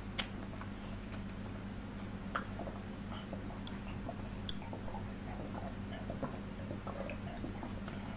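Close-up eating sounds: scattered sharp mouth clicks and soft wet smacks of chewing, and fingers squishing rice in curry, over a steady low hum.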